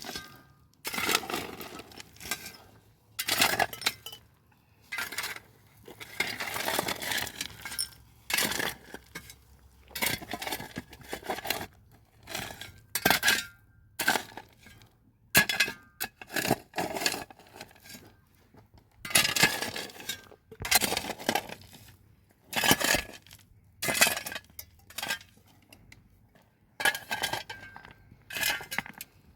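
Dishes and glasses being handled: irregular clinks and knocks, some leaving a short ring.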